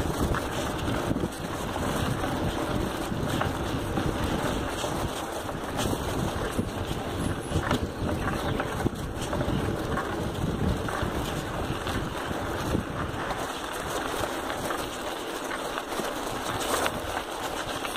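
Wind buffeting the microphone of a camera on a moving bicycle riding a dirt road, a steady rumble with scattered small knocks and rattles. The low rumble eases for a few seconds near the end.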